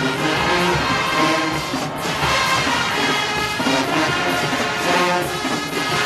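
Marching band playing loudly, its brass to the fore, with trombones and trumpets sounding full sustained chords.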